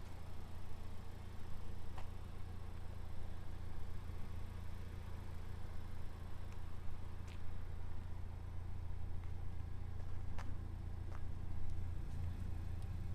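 Honda Civic Type R's 2.0-liter turbocharged four-cylinder idling steadily, a low even hum with a few faint clicks.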